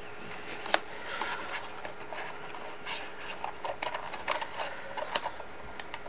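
Stiff cardstock being handled, bent and slotted together: rustling and crinkling with small clicks and taps, one sharper click about three quarters of a second in and a flurry of quick ticks near the middle. A faint steady hum runs underneath.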